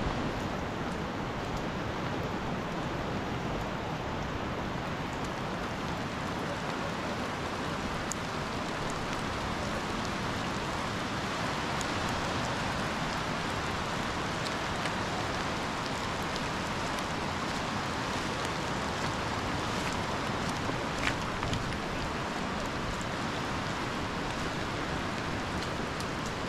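Steady rain falling, an even hiss with a few scattered drops ticking close by.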